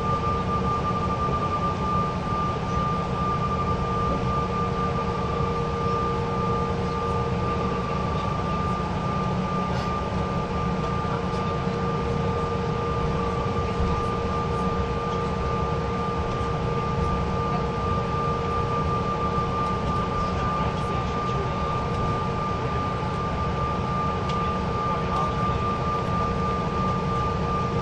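Cabin noise of a Bombardier CRJ900 rolling along the ground: its rear-mounted General Electric CF34 turbofans run at a steady setting, giving a constant low rumble under a steady two-note whine.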